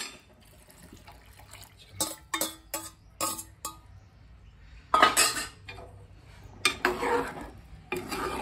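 Steel spoon and ladle clinking and knocking against an aluminium cooking pot: a sharp click at the start, a quick run of clicks a couple of seconds in, then two longer spells of the spoon scraping and stirring through chickpeas in liquid.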